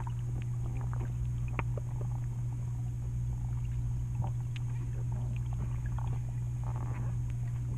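Underwater sound picked up by a GoPro below the sea surface: a steady low rumble of moving water with scattered small clicks and pops.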